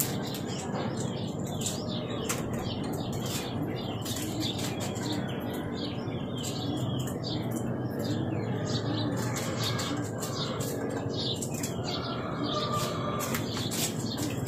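Small birds chirping repeatedly over a steady low background, with many light clicks throughout.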